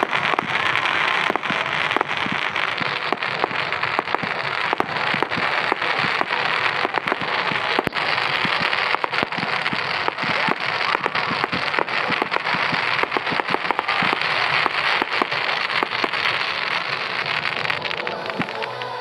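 Fireworks crackling overhead: a dense, continuous crackle of many sharp pops from crackling stars bursting in the sky, easing off slightly near the end.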